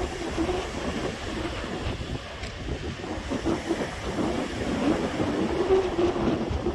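Small waves washing onto a sandy beach, with wind rumbling on the microphone and a low wavering hum throughout.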